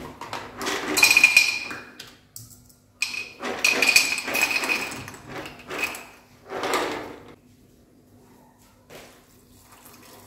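Dry soya chunks rattling in a plastic jar and being poured into a ceramic bowl, in several clattering bursts with a high ringing note, then it goes quiet.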